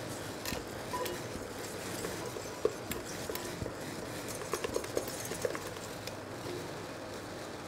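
Water simmering in a steel saucepan under a glass bowl bain-marie: a steady low hiss with scattered small pops and ticks.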